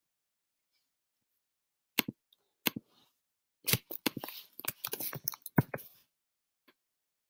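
Two sharp clicks about two seconds in, then a quick run of computer keyboard typing, a short word typed, stopping about six seconds in.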